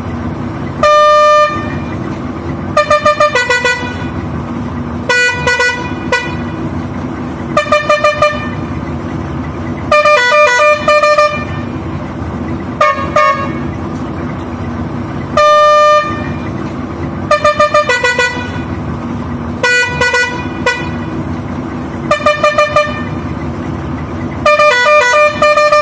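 Cobra 24-volt musical air pressure horn on a Preet 987 combine harvester sounding a series of tunes: some single held notes under a second long, others quick runs of changing notes, with short gaps between, over a steady low hum.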